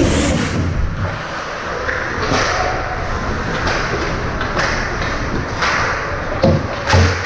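Ice hockey play: a string of sharp knocks and thuds from puck, sticks and boards, about six in all with the loudest two near the end, over a steady scraping hiss of skates on the ice.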